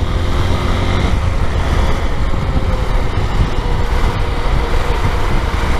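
Motorcycle under way in traffic: the engine hums steadily for about the first second, then an even rushing noise of wind over the microphone takes over as the bike moves along.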